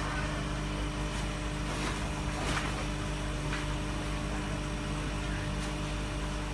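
Steady low electrical hum with a constant hiss, the kind of drone given off by running pumps or other mains-powered equipment, with a few faint clicks.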